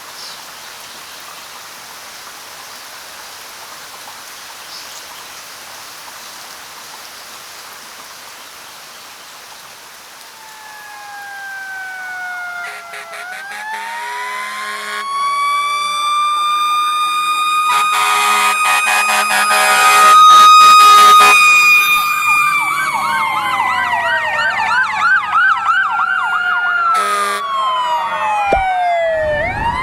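Steady rain for about ten seconds, then a loud siren-style wake-up alarm swells in: several overlapping wailing tones that rise, hold and fall, with a fast warble partway through, drowning out the rain.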